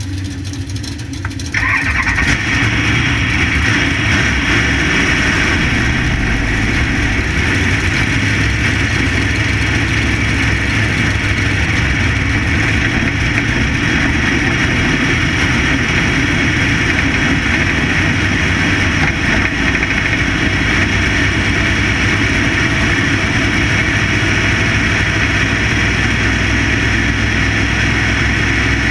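Dirt-track Factory Stock race car's engine heard from a hood-mounted camera, running at low speed. About a second and a half in it gets louder, then runs steadily.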